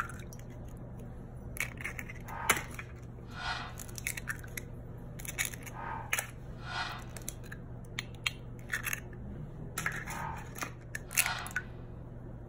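Raw eggs being cracked open with a fork against their shells and dropped into a glass bowl: a string of short, sharp shell cracks and brief crunching. Near the end the fork starts beating the eggs in the glass bowl.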